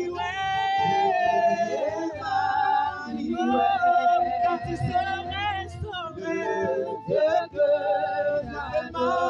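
Church worship singing: women's voices with a man's voice, singing long held, wavering notes of a slow praise melody.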